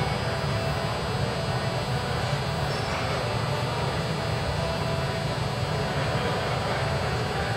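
Steady low rumble with a faint hum, unchanging throughout: the background noise of a large indoor arena.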